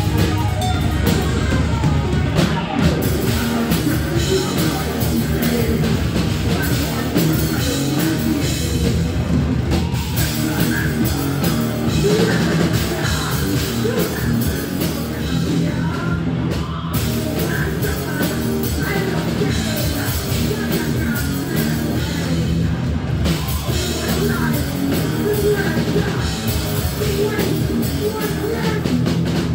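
A thrash metal band playing live and loud: a fast drum kit with cymbals, distorted electric guitars and bass, with a singer's vocals at times.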